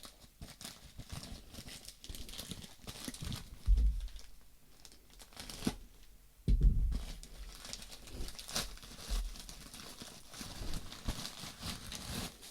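Packaging being torn open and crinkled by hand, a steady run of rustling and scratching. Two dull thumps, the loudest sounds, come about four and six and a half seconds in.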